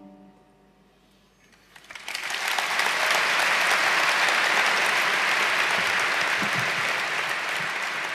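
A brief hush, then a concert audience breaks into steady applause about two seconds in.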